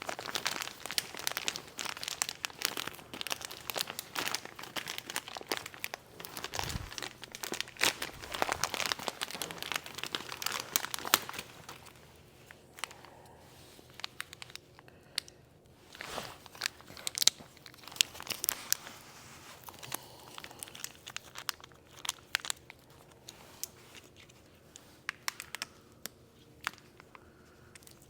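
Hand work with tools and parts: dense irregular rustling and clicking for about the first eleven seconds, then sparser sharp clicks and taps.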